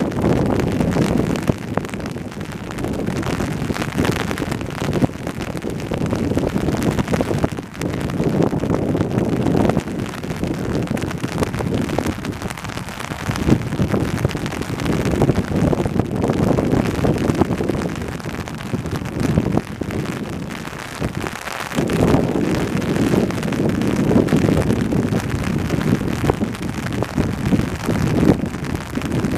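Gusty wind buffeting the microphone, swelling and easing every few seconds, over a rain shower.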